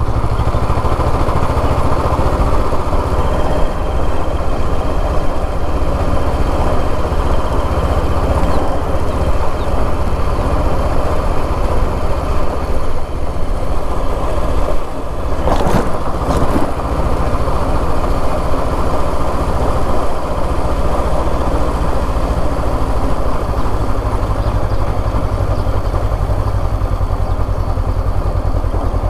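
Motorcycle engine running steadily as the bike rides along at low speed, with a brief clatter about halfway through.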